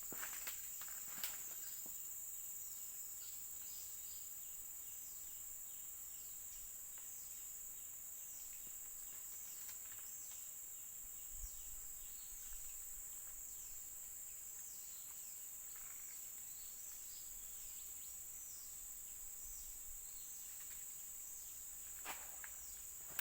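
Steady high-pitched drone of insects, with many short falling chirps over it and a few sharp clicks or rustles near the start and near the end.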